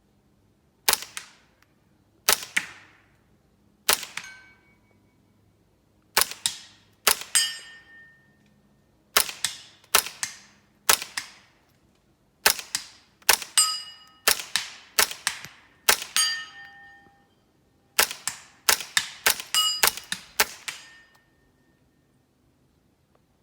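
Suppressed Smith & Wesson M&P 15-22 firing subsonic .22 LR through a Gemtech GM-22 suppressor: about twenty quiet, sharp cracks at an uneven semi-automatic pace, several followed by a brief ringing tone. The firing stops about three-quarters of the way through as the magazine runs empty.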